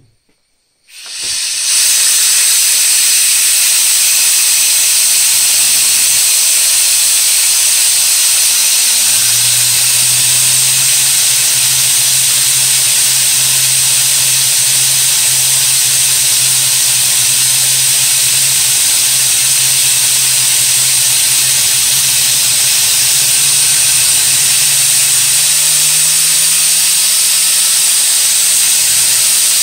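Compressed air jetting through the nozzle into a home-built five-disc Tesla turbine: a loud steady hiss that starts suddenly about a second in. A low hum underneath comes in about eight seconds in and rises in pitch near the end.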